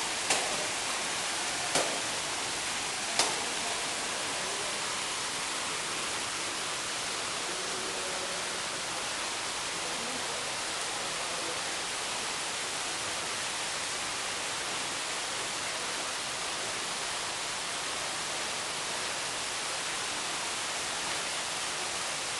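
Steady rushing hiss of water pouring from a portable artificial waterfall, with three sharp clicks in the first few seconds.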